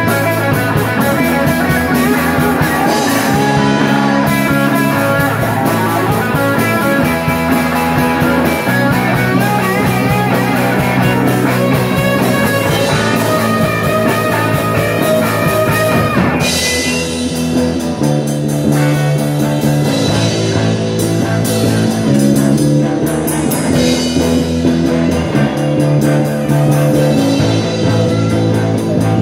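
Live rock band playing an instrumental passage: two electric guitars, bass guitar and drum kit. The sound changes about halfway through.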